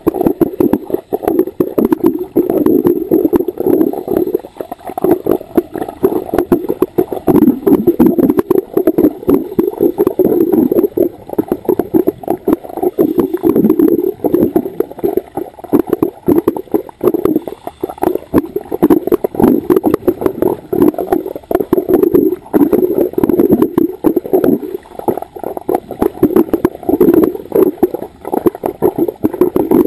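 Scuba regulator exhaust bubbles gurgling, heard underwater: a loud, continuous crackle of bubbles that swells and fades with each breath.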